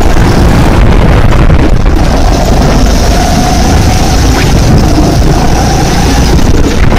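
Kart engine running at speed as the kart accelerates out of a corner, heard through a phone fixed to the driver's helmet, with a heavy steady low rumble of wind and engine noise.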